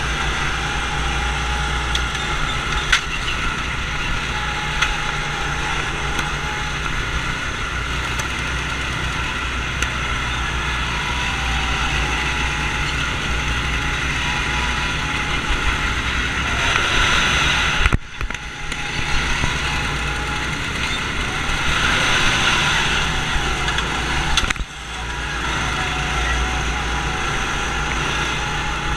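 Small go-kart engines running steadily at speed, heard close up from the driver's seat, with other karts running alongside. Twice in the second half the sound drops away for a moment before picking up again.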